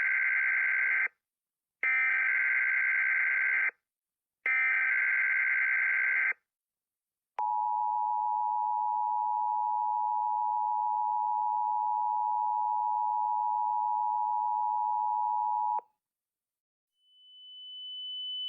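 Emergency Alert System broadcast: three shrill bursts of SAME header data, about two seconds each with short gaps, the first already under way. Then the two-tone EAS attention signal holds steady for about eight seconds and cuts off sharply. Near the end a single high steady tone fades in.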